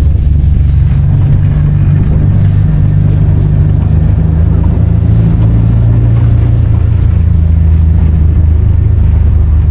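A motor vehicle's engine running steadily at close range, a constant low drone without change in pitch.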